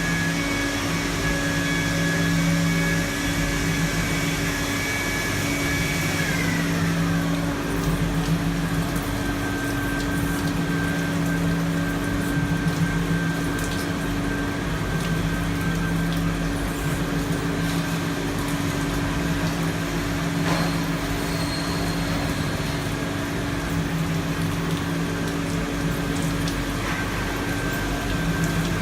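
IPX4 rain test chamber running: a steady machine hum from its pump and swing-pipe drive under the hiss and patter of water spraying. A high whine drops in pitch about six seconds in.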